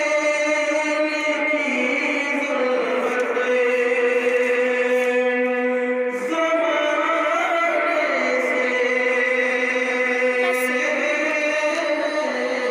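A man singing a naat, an Urdu devotional poem in praise of the Prophet, into a microphone, drawing out long notes that slide up and down, with a short break for breath about six seconds in.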